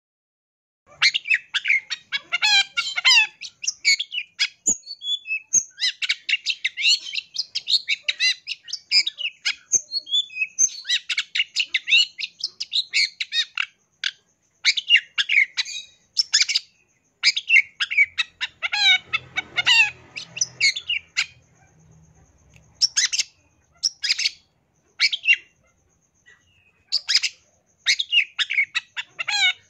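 Long-tailed shrike (cendet) singing a fast, varied song of high chirps, trills and imitated calls of other birds, in quick runs broken by short pauses.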